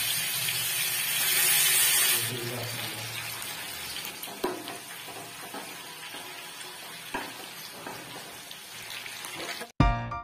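Marinated chicken pieces sizzling in hot oil in a pan. The sizzle is loudest for the first couple of seconds, then settles into a steadier sizzle, with a couple of knocks of a slotted metal spoon against the pan. Music starts just before the end.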